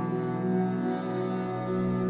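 Background music made of sustained, droning tones that hold steady.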